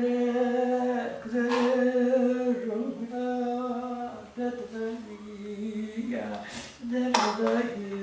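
A woman's voice singing a mourning lament (ağıt) in long, held, wavering notes. A short hiss sounds about a second and a half in, and more near the end.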